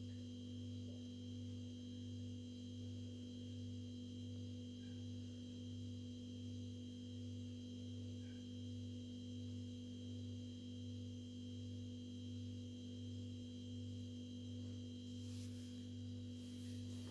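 Faint, steady electrical hum with a thin high whine above it, unchanging throughout; a few faint clicks near the end.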